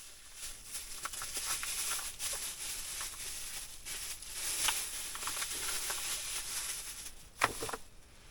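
Close rustling and crinkling, like fabric or plastic being handled, with small clicks throughout and one sharp knock near the end.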